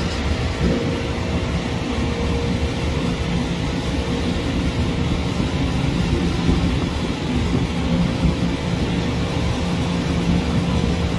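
Distant jet airliner's engines giving a steady low rumble as it rolls out down the runway just after landing.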